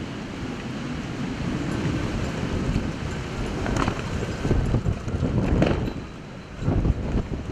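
Hurricane wind gusting over the microphone above the steady rush of storm-surge floodwater, with the strongest buffets about halfway through and again near the end, a brief lull between them.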